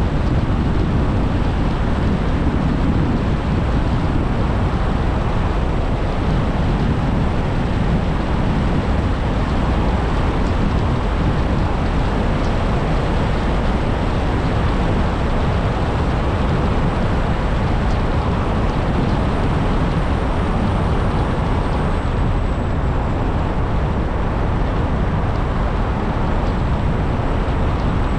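A car driving steadily, with a constant rush of road and wind noise that is heaviest in the low end and never changes in pace.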